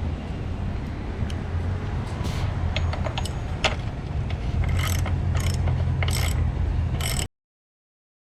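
Mechanical whirring with a low steady hum and several sharp clicks and knocks, stopping abruptly near the end.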